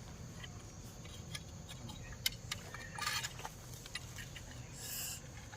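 Faint scattered clicks, taps and light scrapes of the rescue handling, with a short hiss-like burst of noise near the end.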